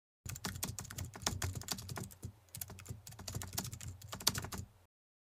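Keyboard typing sound effect: a rapid run of key clicks, with a brief pause a little past two seconds in, stopping shortly before the end.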